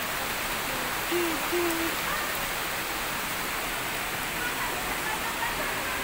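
Steady rush of water from a waterfall and its rocky stream, an even, unbroken hiss. Faint voices of people come through it about a second in and now and then after.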